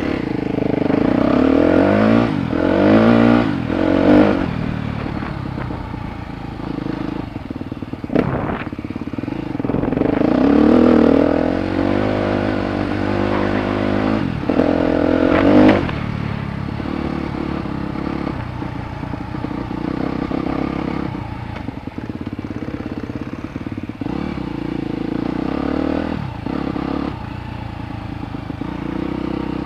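Suzuki DR-Z250 single-cylinder four-stroke dirt bike engine revving up and easing off over and over as it is ridden along a trail, with a few sharp clattering knocks from the bike on the rough ground.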